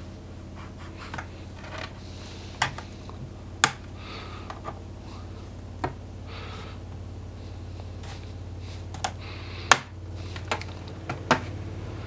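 Plastic retaining clips of an Acer Aspire 3 A315-54K laptop's bottom cover snapping loose as a plastic pry tool is pressed down along the side seam. About half a dozen sharp clicks come at irregular intervals, with faint scraping of the tool between them, and the loudest snap comes late on.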